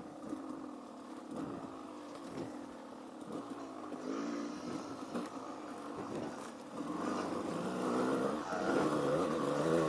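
Motorcycle engine running on a trail ride, its note rising and falling with the throttle and growing louder from about seven seconds in.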